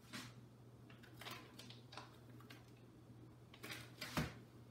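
Soft rustles and light taps of sliced cheese being taken from a plastic package and laid on raw beef slices, with one dull knock about four seconds in, over a steady low hum.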